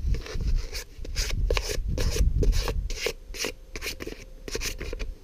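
Abrasive paper rubbed back and forth along an ash hammer handle, sanding the wood smooth: quick scratchy strokes, about three a second.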